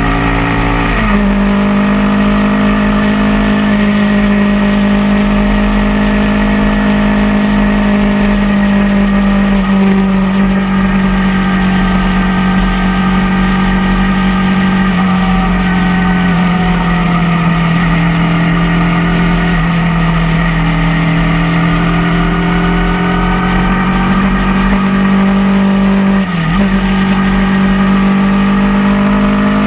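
Motorcycle engine running at cruising speed under the rider, with wind rush on the microphone. The engine note drops about a second in, as after an upshift, then holds steady with slight changes in pitch, and dips briefly and recovers near the end.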